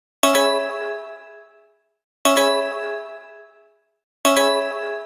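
Emergency alert tone made of a bell-like chime, struck three times about two seconds apart, each strike ringing with several tones and fading out over about a second and a half.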